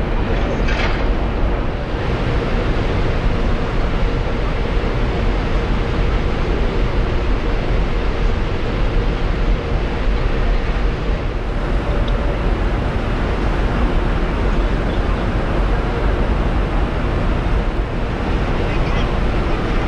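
Ferry's engines and thrusters running steadily with a low hum as the ship pulls away from the quay, with churning propeller wash and wind noise on the microphone.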